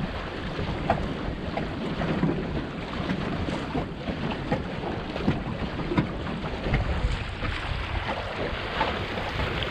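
Wind buffeting the microphone over water slapping and splashing against the hull of a Wayfarer sailing dinghy as it sails through choppy water, with many short sharp splashes and knocks.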